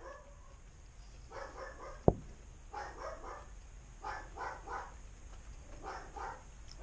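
A dog barking in four short bouts a second or so apart. A single sharp click about two seconds in is the loudest sound.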